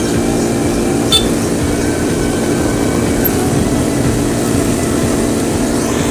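Cotton candy machine running: its motor and spinning head make a steady mechanical whir while pink sugar floss is wound onto a stick. A short click comes about a second in.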